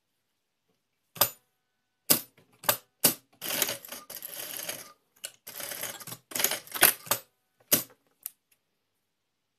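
Industrial lockstitch sewing machine stitching bias binding in short starts and stops, with sharp clacks between two longer runs of about a second and a half and under a second.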